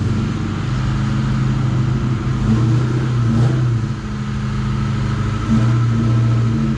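SN95 Ford Mustang's engine running at low, steady revs, with small rises and dips in level.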